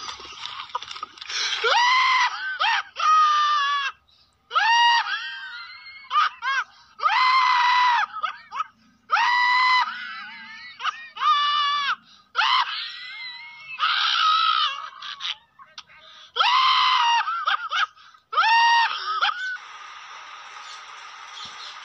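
A person screaming over and over in high-pitched shrieks, about a dozen, each a second or so long with short gaps between them. Near the end the screams give way to a steady hiss.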